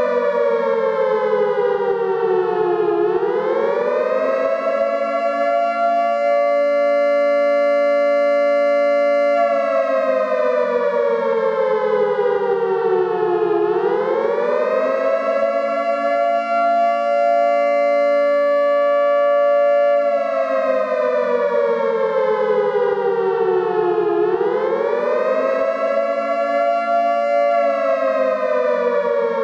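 Siren wailing in slow cycles of about ten seconds: the pitch climbs quickly, holds steady for several seconds, then slides slowly down, about three times over. It sounds a low note and a higher note together.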